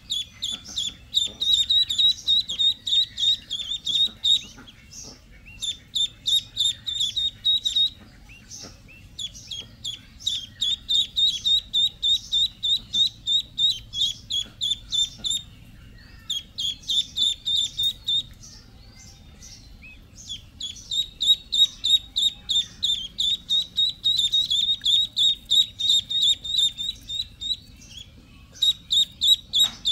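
Duckling peeping: long runs of short, high-pitched peeps, a few a second, broken by brief pauses.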